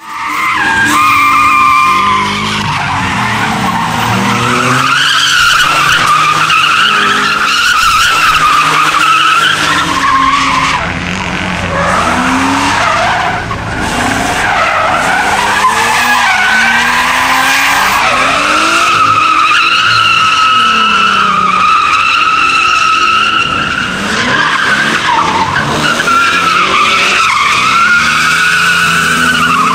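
Rear-wheel-drive BMW E30 drifting: tyres squealing continuously with a wavering pitch while the engine revs up and down through the slides.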